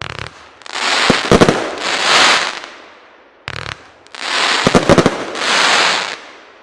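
A 25 mm firework compound cake (Albert Feuerwerk 'Push it to the Limit') firing two volleys about three and a half seconds apart. Each volley is a short rattle of launches, then a cluster of sharp cracks and a long hissing crackle as the gold stars burst.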